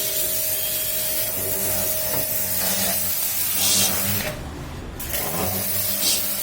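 Electric high-pressure washer running with a steady motor hum and the hiss of its water spray; the spray stops for under a second a little past four seconds in, then starts again.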